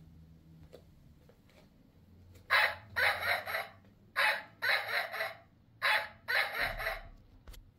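DIY barking burglar alarm sounding a recorded dog bark: three quick groups of about three barks each, starting about two and a half seconds in.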